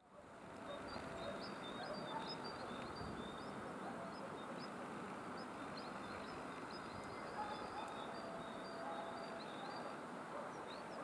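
Faint outdoor ambience: a steady background rush with birds chirping throughout in short, high, thin notes.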